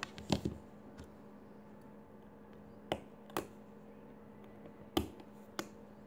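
Several sharp clicks and light knocks, spaced irregularly, as a wristwatch and its leather strap are handled and set against a hard table top.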